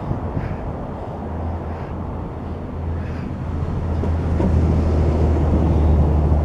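Low, steady engine rumble with a deep hum that comes in about a second and a half in and grows louder, as of a motor vehicle passing close by.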